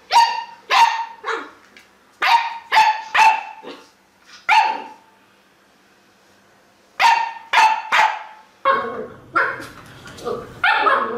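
A puppy barking at a lemon in short, sharp barks: a run of about eight, a pause of about two seconds, then three more. Near the end, after a cut, another dog barks over a low background hum.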